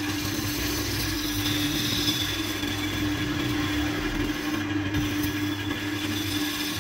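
Wood lathe running with a steady motor hum, with a continuous hiss from the spinning wooden workpiece being worked by a gloved hand.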